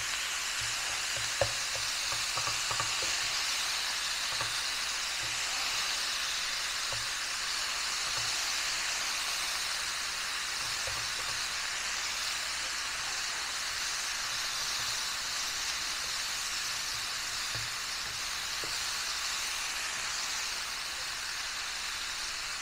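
Ground beef and pork sizzling steadily as they brown in hot oil in a frying pan, with a few faint clicks and one sharper click about a second and a half in.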